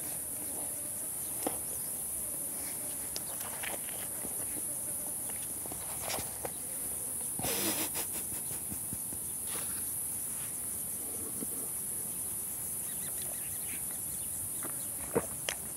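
Insects chirring steadily in a high, even hiss, with faint scattered clicks and a short rustle about halfway through.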